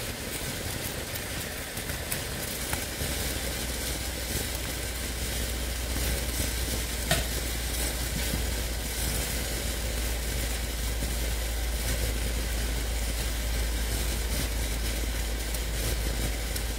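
Chicken broth at a hard boil around freshly dropped dumplings, bubbling steadily, while a slotted metal spoon pushes the dumplings down and ticks lightly against the pan twice. A steady low hum runs underneath.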